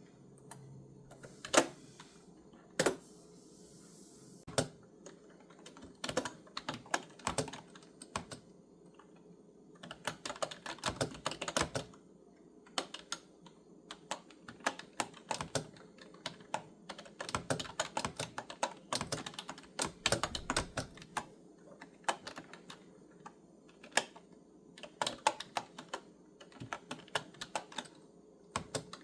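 Clicky keyboard keys typed in irregular bursts, with short pauses between runs and a couple of louder single key strikes about two and three seconds in.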